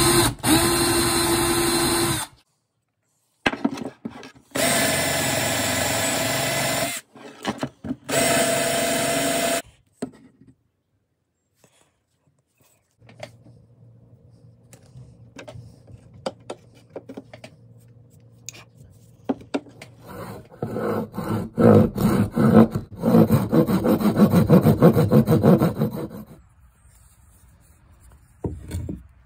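Power drill boring into a poplar wood lure body, in three loud bursts over the first ten seconds. Later comes a rough rubbing or scraping on wood lasting about six seconds.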